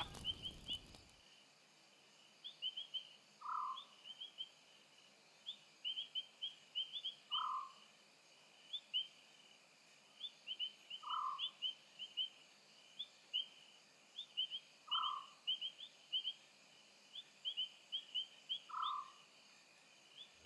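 Wild animal calls in the bush: a short call repeats five times, evenly, about every four seconds, over clusters of quick high chirps and a faint steady high hum.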